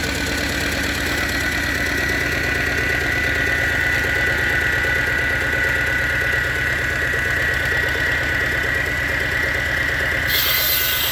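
Lister-type twin-cylinder diesel engine of a 20 HP generator running steadily with an even knocking beat, under a steady high whine. Near the end a high rasping hiss begins, a saw starting to cut wood.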